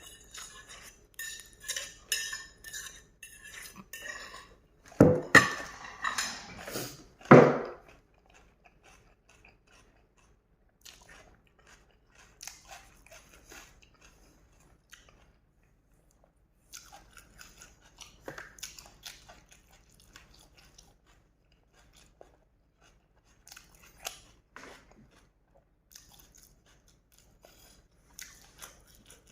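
Eating noodles: cutlery clinking against a bowl, with chewing. There are a few loud noisy bursts about five to seven seconds in, then quieter chewing and occasional clinks.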